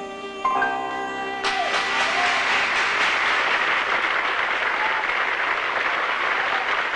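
Cello and piano play the last held notes of a ballad, then audience applause breaks out about a second and a half in and continues.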